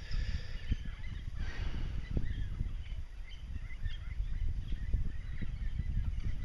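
Faint scattered bird calls over a low rumbling background with small knocks.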